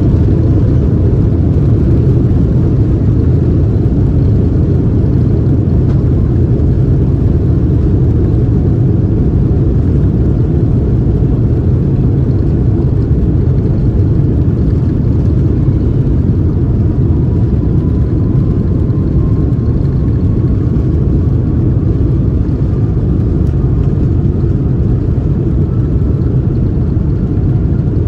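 Steady, loud rumble of a Boeing 787 Dreamliner's engines and airflow heard inside the passenger cabin in flight, with a faint whine slowly rising in pitch through the second half.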